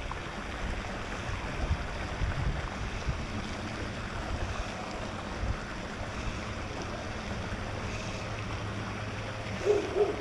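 Wind buffeting the microphone: a gusty low rumble over a steady outdoor hiss.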